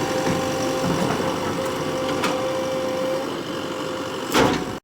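JCB 3DX backhoe loader's diesel engine running steadily with a steady whine, and one brief louder thump near the end.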